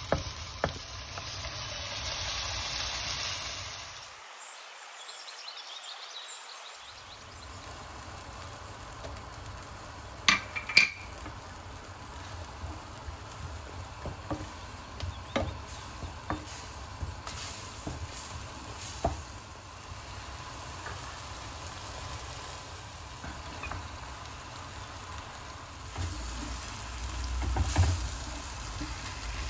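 Onions, green chillies and ginger-garlic paste sizzling in hot oil in a clay pot, stirred with a wooden spatula. After a brief break about four seconds in, a quieter frying hiss continues with a few sharp knocks around the middle, and heavier stirring near the end.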